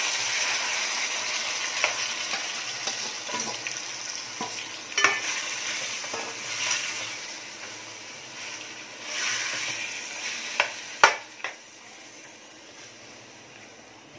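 Marinated chicken sizzling in hot oil in a metal pot while it is stirred with a steel spoon. The sizzle is strongest at first and dies down steadily, and the spoon clinks and scrapes against the pot now and then, loudest about eleven seconds in.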